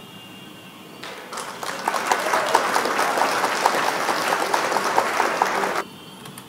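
Applause sound effect marking a correct answer: clapping starts about a second in, runs for about five seconds and cuts off suddenly.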